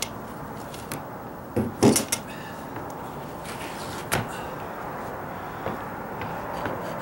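Several short sharp knocks and clunks as work gear is handled on a deck: a paint can, a brush and a kneeling pad. The loudest pair comes about two seconds in, over a steady background hiss.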